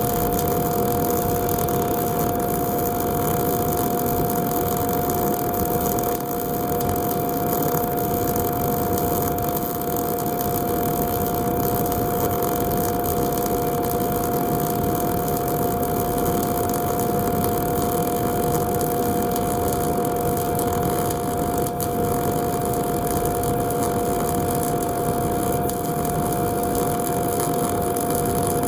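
MIG welding arc running steadily as it lays a horizontal (2G) root pass, a continuous even noise with two steady tones running underneath.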